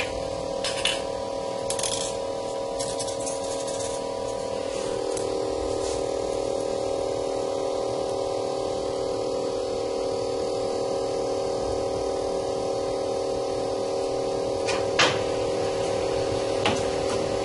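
Triangel LCD separator machine's vacuum pump running with a steady hum, holding the phone screen down on the heated plate; the hum gets a little louder about five seconds in. A few light scrapes and clicks as a 0.6 mm hard steel wire is drawn through the glue between touch glass and display.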